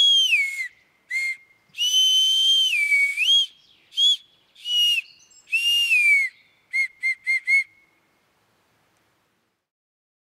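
Maienpfeife (tree-bark whistle) blown in a run of clear, high notes, some held and sliding down or up in pitch, ending in four short toots; it stops about eight seconds in.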